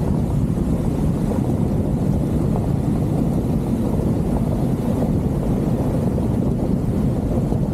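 Steady rumble of a car driving on a loose gravel road, with tyre noise and wind buffeting on a camera mounted outside on the car.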